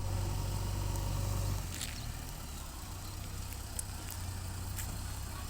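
Heavy diesel engine of working machinery running with a steady low drone, louder for the first second and a half and then easing back, with a few faint clicks.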